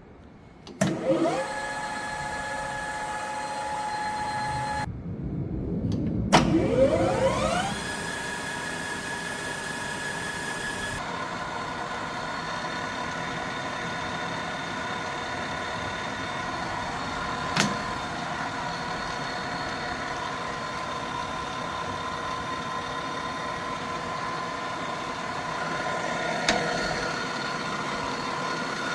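Hwacheon HL-380 geared-head lathe spindle starting and spinning up with a rising whine, then running with a steady gear whine. It starts again and winds up to a higher-pitched steady whine. A single click comes about the middle and another near the end.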